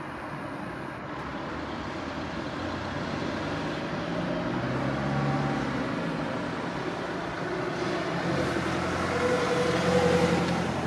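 Street traffic: vehicle engines passing by over a steady traffic noise, one building a few seconds in and a louder one near the end.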